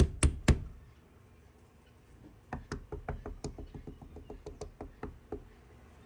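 Knocking on painted wooden house siding: three hard knocks right at the start, then after a pause a quick, uneven run of lighter knocks for about three seconds. The knocks signal a spot on the wall to someone crawling under the house.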